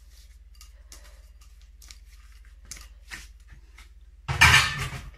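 Faint clicks and scrapes as chopped mushrooms are tipped and scraped out of a small plastic bowl with a gloved hand, then a loud brief thump and rustle about four seconds in.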